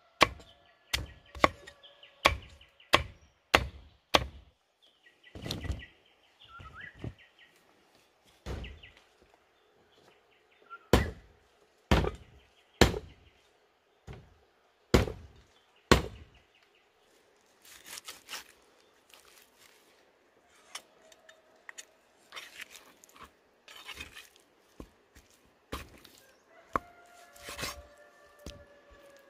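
A large kitchen knife chopping on a thick round wooden chopping block: a quick run of sharp knocks through the first half, then sparser, softer cuts and scraping.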